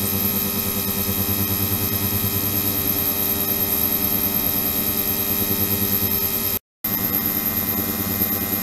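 Steady buzzing hum with hiss from a 72 kHz, 300 W ultrasonic transducer running in a water-filled plastic (resin) container. The sound cuts out briefly about two-thirds of the way through, then resumes unchanged.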